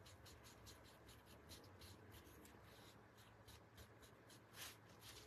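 Faint, quick scratchy strokes of a paintbrush working paint onto a small wooden cutout, about five strokes a second, with one brief louder rasp near the end.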